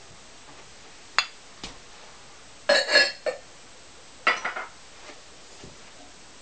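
Cone 5 glaze-fired ceramic pots clinking against each other and the kiln as they are handled: a single ringing clink about a second in, a cluster of clinks around three seconds, and another short cluster a little later.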